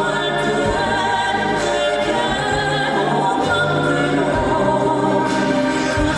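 Live crossover vocal music: a male vocal group sings sustained, vibrato-laden lines in harmony over instrumental accompaniment, amplified through the concert sound system.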